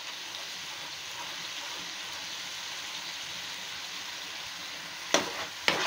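Spiced gravy paste sizzling steadily as it fries in oil in a nonstick pan, being stirred with a spatula; near the end the spatula strikes or scrapes the pan twice. The paste has begun to release its oil, the stage at which the masala is fried through.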